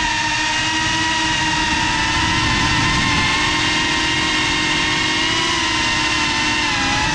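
The GEPRC CineLog 35 cinewhoop's brushless motors and ducted propellers whining steadily, heard from the GoPro mounted on the drone, the pitch wavering slightly with throttle and dipping briefly then rising near the end.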